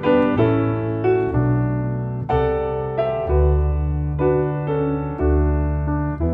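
Grand piano and plucked double bass playing a slow duo piece, a new piano chord or melody note struck about once a second over sustained bass notes.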